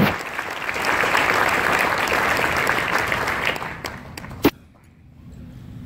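Audience applauding, dying away after about three and a half seconds, followed by a single sharp knock.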